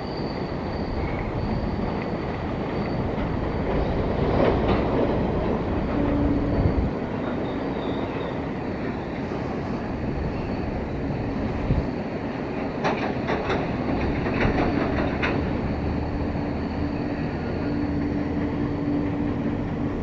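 Long freight train rolling past, a steady rumble of wagons with wheel clatter over rail joints. A quick run of sharp clicks comes about two-thirds of the way in, and a faint, steady, high-pitched whine runs through most of it.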